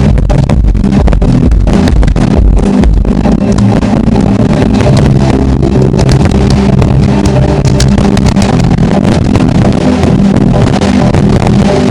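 Firework display, a dense, loud rumble of bursts with crackling, over music with held chords.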